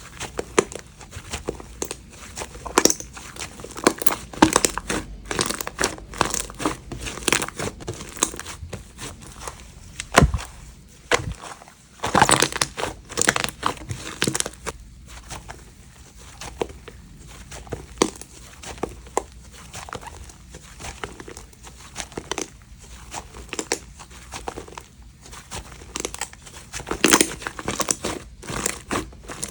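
Slime being squeezed and pressed by hand: an irregular run of crinkly crackles and sticky clicks, thickest about twelve seconds in.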